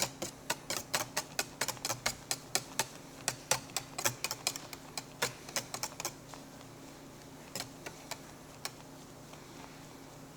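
Whisk clicking against the side of a mixing bowl while egg whites are whisked into eggnog. The clicks come quickly, about five a second, for around six seconds, then thin out to a few scattered taps.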